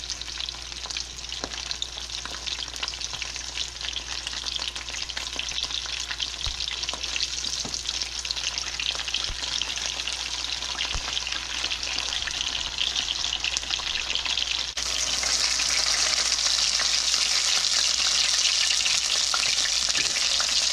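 Pieces of floured, hot-sauce-coated meat frying in a pan of hot oil: a dense sizzle with continuous popping and crackling of the oil, getting steadily louder and jumping up in loudness about three quarters of the way through.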